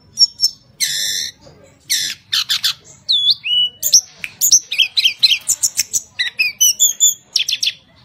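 Caged tledekan gunung (hill blue flycatcher) singing a fast, varied song of high clear whistles, rapid trills and quick up-and-down glides, with a couple of harsher rasping notes early on. The song runs with only brief breaks throughout.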